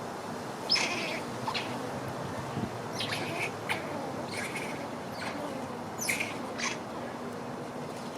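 Squirrel giving its defensive alarm call: about ten short, sharp chirping calls, some falling quickly in pitch, coming singly and in small clusters at uneven intervals.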